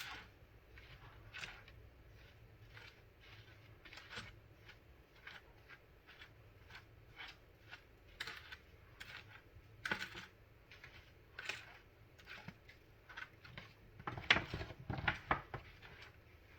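Spoon stirring dry spice powder in a bowl: a steady run of short scraping strokes, about two a second, with a quicker, louder flurry near the end.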